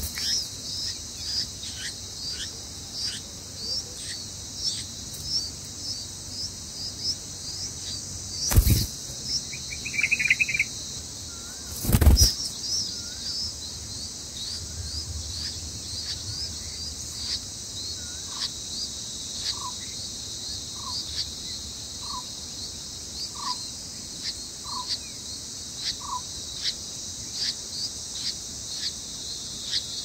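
A steady high-pitched insect drone with thin, rapid chirps over it, about two a second, typical of red-vented bulbul nestlings begging at the nest. Two brief thumps about nine and twelve seconds in, and later a bird repeating one clear note about once a second.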